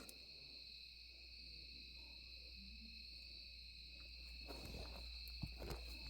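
Steady chorus of night insects, crickets trilling in a continuous high-pitched drone. From about four and a half seconds in come scattered soft knocks and rustles.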